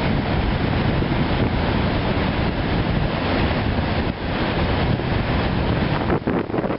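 Strong wind buffeting the microphone over the continuous rush of heavy storm surf on Lake Michigan, turning gustier near the end.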